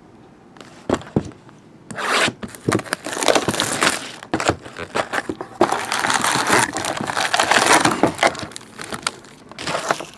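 A cardboard trading-card hobby box being opened and its foil-wrapped packs pulled out and stacked: rustling, crinkling and tearing of cardboard and foil wrappers, starting about two seconds in after a couple of light knocks.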